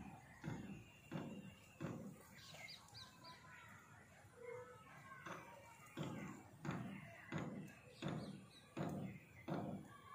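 A crow cawing over and over, short calls about every 0.7 seconds in two runs separated by a pause of a few seconds, with a few brief high bird chirps in the pause.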